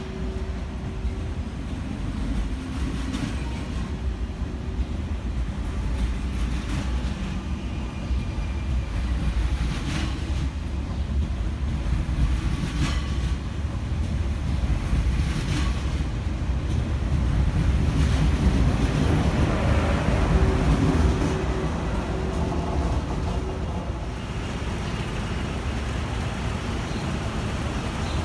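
SNCF TGV Duplex double-deck high-speed train rolling slowly past along the platform: a steady low rumble with a few short sharp clicks. It grows louder about two-thirds of the way through.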